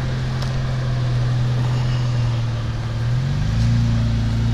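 Jeep Wrangler engine running at low revs as it crawls along a tight trail. Its note drops slightly and gets a little louder about three seconds in.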